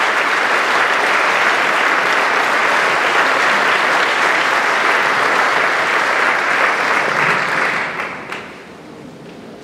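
Audience applauding steadily, dying away about eight seconds in.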